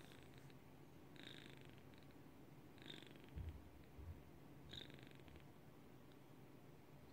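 Turkish Angora kitten purring faintly in three short bouts about a second and a half apart. Two soft low thumps come in the middle.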